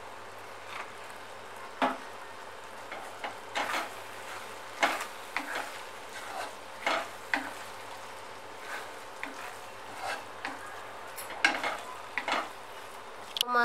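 Wooden spatula stirring vermicelli upma in a kadai, with irregular scrapes and knocks against the pan over a steady low sizzle of frying.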